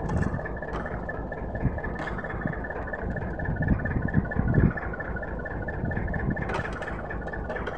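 Small fishing boat's engine idling steadily with a fast pulsing whine, with a few low thumps as the gill net is hauled aboard.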